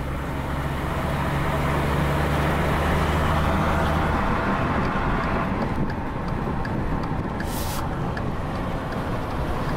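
Ford F-150's twin-turbo V6 pulling hard under full acceleration, heard from inside the cab. Its steady engine tone drops away about four seconds in as the transmission upshifts and the revs fall. In the second half the turn signal ticks steadily.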